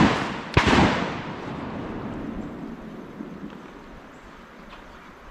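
Shotgun fired twice in quick succession, the two blasts less than a second apart, the second about half a second in, both echoing and fading away over the next few seconds.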